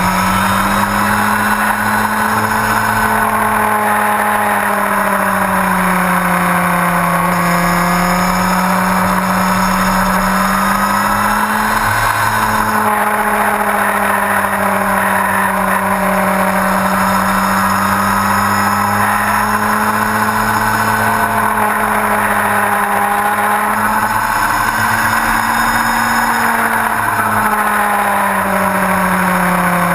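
Yamaha R1's inline-four engine running under way at steady part throttle, its note rising and falling gently in pitch, with wind and road noise rushing past the low-mounted camera.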